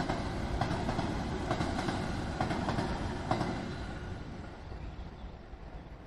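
Electric passenger train running past, its wheels clicking over rail joints about once a second, then fading away as it recedes.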